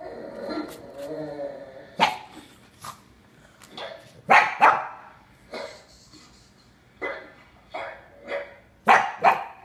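Dog barking in short, sharp single barks, about a dozen. The loudest come as two quick pairs, one near the middle and one near the end. A low, wavering growl opens it.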